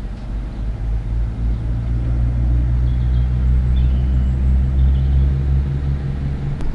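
Diesel railcar's engine running with a steady low drone as the train moves off along the platform, swelling slightly partway through. Faint chirps come through about three seconds in.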